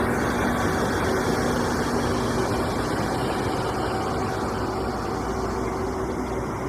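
A heavy engine running steadily at idle, growing slightly quieter over the seconds.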